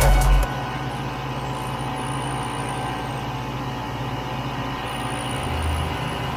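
Vintage 1967 Ski-Doo Olympique snowmobile's single-cylinder two-stroke engine running at a steady speed while the sled is ridden. Background music cuts off about half a second in.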